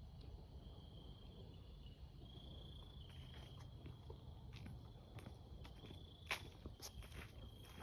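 Faint insects trilling, a high steady trill that comes and goes in stretches of about a second. Scattered clicks and rustles grow louder near the end.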